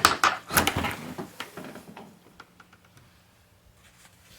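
Porcupine making its weird raspy noises: a rough run of several bursts over the first two seconds, then a few faint clicks.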